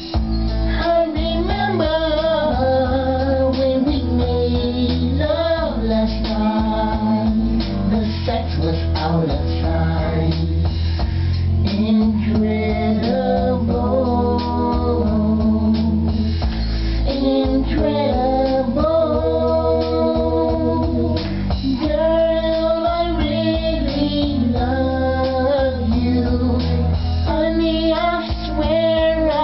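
Pop song: a lead vocal sung in long, bending melodic lines over a steady backing track with a strong bass.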